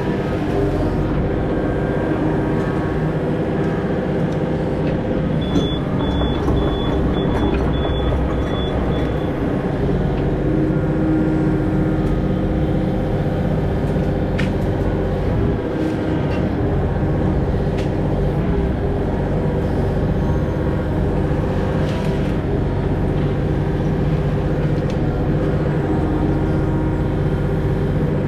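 Mini excavator's diesel engine running steadily under working load, with a few faint knocks. A short run of about six high beeps comes about six seconds in.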